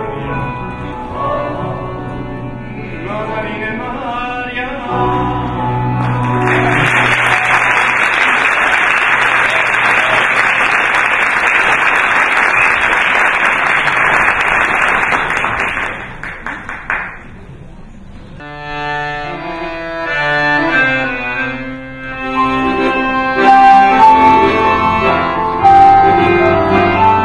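Piano accordion playing, cut off about six seconds in by an audience applauding for about ten seconds. After a short lull, the accordion and a piano start a new piece together.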